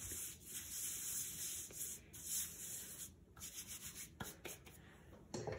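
Hands sweeping and rubbing flour across a pastry mat: a run of soft, dry swishing strokes for about three seconds, followed by a couple of light knocks near the end.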